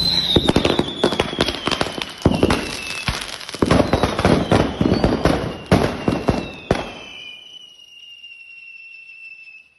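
A box of mixed firecrackers going off: a rapid, dense string of bangs and crackles for about seven seconds, with a high whistle sliding down in pitch over it. Then the bangs stop, and a fainter high whistle keeps falling in pitch until it cuts off near the end.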